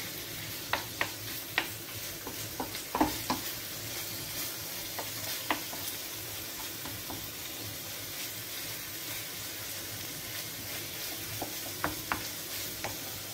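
Ground pork sizzling in a frying pan while a wooden spoon presses and stirs it to break up the mince. The spoon scrapes and taps against the pan, several sharp taps in the first few seconds and a few more near the end, over a steady sizzle.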